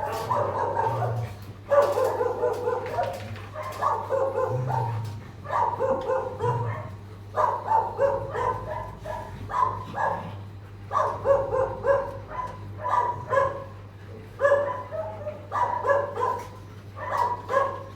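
Dogs barking in quick bouts about once a second, over a steady low hum.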